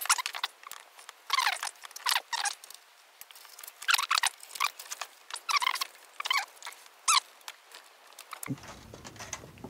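Small screwdriver turning screws out of a camcorder's metal chassis, squeaking in short high bursts, about six of them. Near the end a low steady hum comes in.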